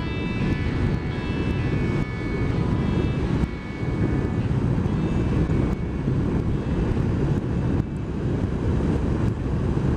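BMW R1200 R's boxer-twin engine running as the motorcycle rides along at speed, mixed with heavy wind rush on the microphone. The level dips briefly a few times.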